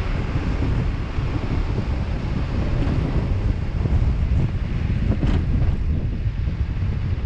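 Wind buffeting the microphone over a steady low rumble of vehicle and road traffic.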